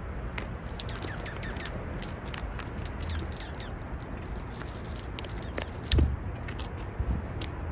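Juncos calling: many short, very high chip notes, some sliding quickly downward, the laser-beam-like chirps, coming in quick scattered runs. A single loud thump about six seconds in.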